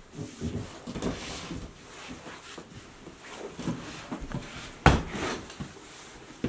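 A person moving about a small room: footsteps and handling noises, with a sharp wooden knock a little before five seconds in, the loudest sound, at a desk.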